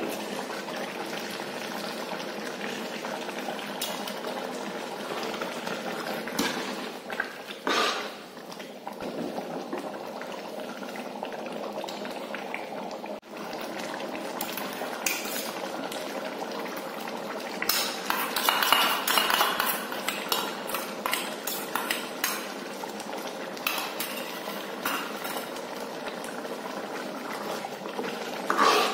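Pork curry bubbling steadily at a boil in a large metal wok, with a metal ladle knocking and scraping against the pan at intervals, busiest a little past the middle.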